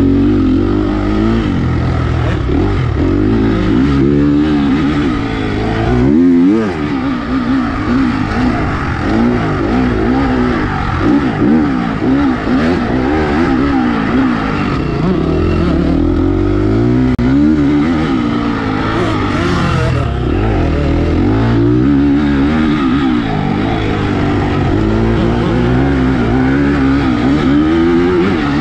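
Dirt bike engine being ridden hard, heard from on the bike: its pitch climbs and drops over and over as the throttle is opened and closed and the gears change.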